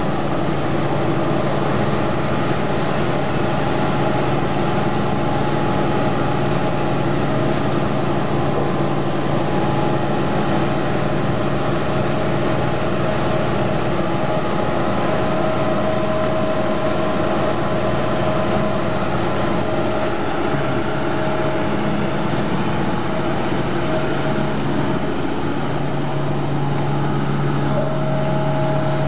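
Amphibious long-reach excavator's diesel engine running steadily as the machine digs, its drone growing stronger near the end.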